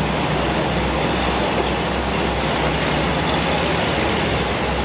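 Steady low drone of a river tour boat's engine under way, under a constant loud rushing noise of water wash.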